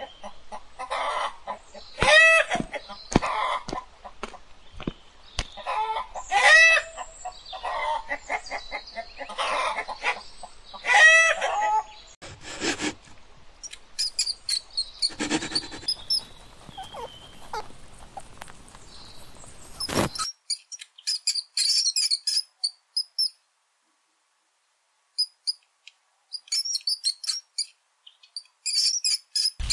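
Chickens clucking and squawking, a call about every second, for the first twelve seconds or so. From about twenty seconds in come quick bursts of high-pitched rat squeaking, broken by a few seconds of silence.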